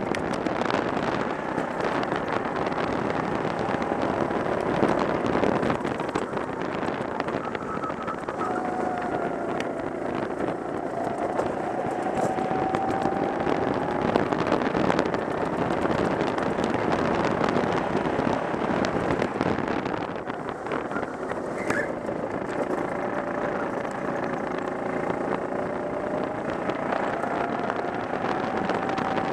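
Go-kart engine running under throttle, heard onboard, its pitch slowly rising and falling as the kart is driven round the track, over a steady rush of wind and road noise.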